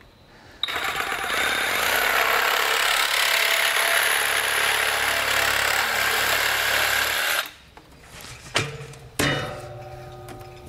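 A power tool runs steadily for about seven seconds, trimming the crooked end of a white PVC pipe. It starts about half a second in and cuts off abruptly, followed by a few light knocks as the pipe is handled.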